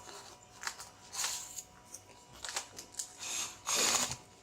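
A parcel's packaging being opened by hand: short scattered rustles and clicks, then a longer, louder rustle near the end.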